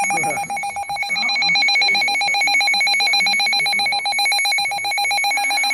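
Weather alert radio sounding its alarm for an incoming NOAA severe thunderstorm warning: a loud, fast electronic trilling beep that repeats many times a second at one steady pitch.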